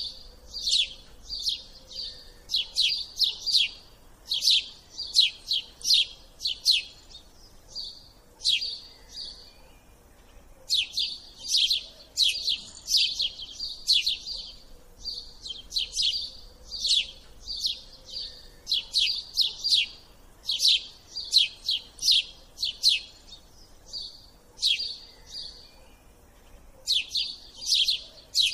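A small bird chirping: quick runs of short, high chirps, repeated over and over with brief pauses between runs.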